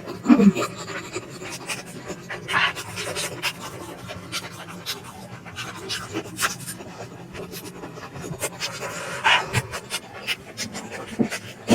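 Close-miked eating sounds of a person chewing momo dumplings: irregular wet mouth clicks and smacks, with breathing.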